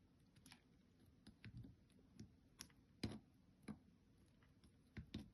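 Near silence broken by faint, irregular clicks and taps, about a dozen in all, from handling multimeter test probes on a microwave's high-voltage capacitor. The loudest come about three seconds in and near the end.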